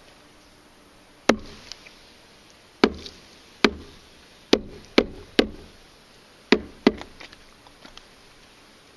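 Sharp knocks of wooden beehive parts being handled and knocked against each other, about eight in irregular succession with a pair near the end.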